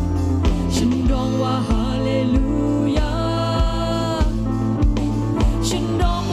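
A woman sings a worship-song chorus in Thai into a microphone over a full band, with sustained low notes and a steady drum beat.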